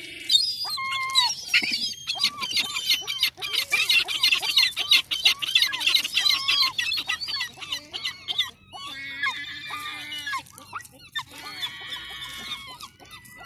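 Herring gulls calling. Many calls overlap in the first half, then they thin out into a few separate bouts of calls.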